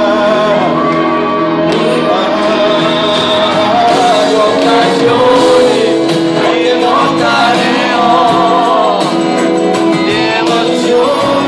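Male singer singing an Italian pop song live over keyboards and a band, amplified through a PA in a large hall, with long held, sliding notes.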